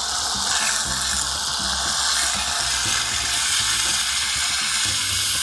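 Two aerosol whipped-cream cans spraying at once, a steady sputtering hiss as the cream comes out onto a bowl of fruit.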